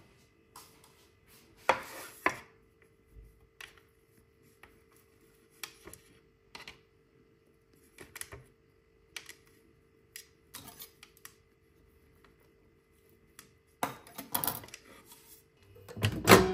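Irregular light clicks and knocks of objects being handled, with a louder cluster near the end, over a faint steady hum.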